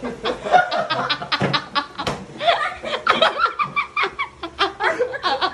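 Stifled laughter: a rapid, continuous run of snickers and chuckles.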